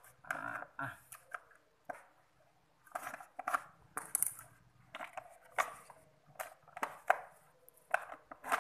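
Screwdriver prying at the seams of a Miyako blender's plastic motor housing: irregular clicks, snaps and scrapes of plastic as the case is levered apart.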